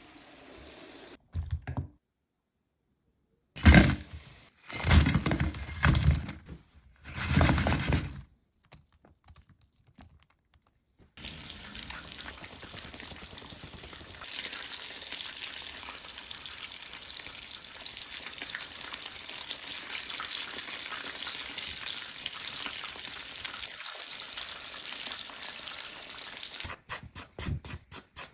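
A few loud, heavy thuds and cracks in the first several seconds, then pork ribs frying in hot oil: a steady sizzle lasting about fifteen seconds that stops suddenly near the end.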